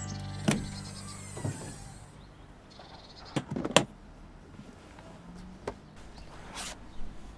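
Cartoon sound effects of a plastic carrying case and a van's rear door being handled: a series of sharp clicks and knocks, the loudest a quick cluster of snaps about halfway through as the case's latches are worked. A music tail fades out in the first second or two.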